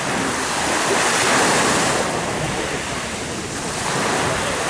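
Sea waves washing onto the shore, surging twice, with some wind on the microphone.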